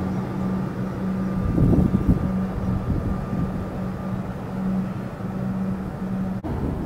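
Comeng electric suburban train rolling slowly into a station platform, with a low electrical hum that pulses on and off over the running noise. The sound breaks off suddenly near the end.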